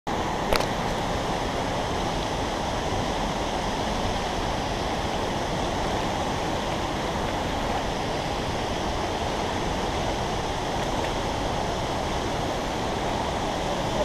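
Steady rush of shallow water running over stones below a waterfall, with the waterfall's fall in the background. A single short click about half a second in.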